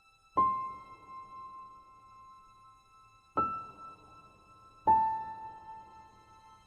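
Three single musical notes struck one at a time, piano- or chime-like, each ringing on and fading slowly: one about half a second in, a higher one three seconds later, and a lower one a second and a half after that.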